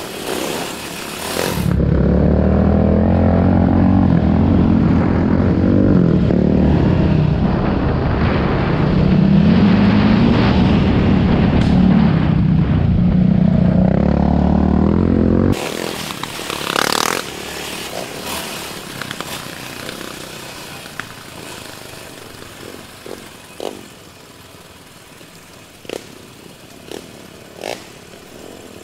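Sport quad's engine running close and loud under way, its pitch rising and falling with the throttle. About halfway through, it gives way abruptly to a quieter trail ride: a faint engine hum under wind noise, with scattered clicks and knocks.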